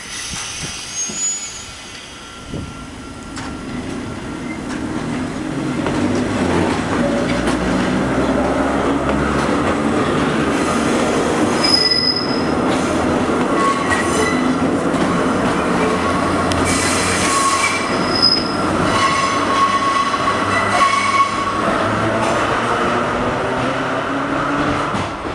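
Two-car Hakone Tozan Railway Moha 2 electric train pulling away and passing close by, getting louder over the first few seconds and then running steadily. Its wheels squeal on the rails in short high-pitched bursts, and there is clatter from the rail joints near the end.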